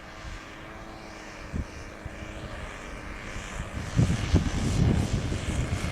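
Twin OS 46 nitro glow engines of a radio-control model plane running, growing louder; from about four seconds in, wind gusts buffet the microphone.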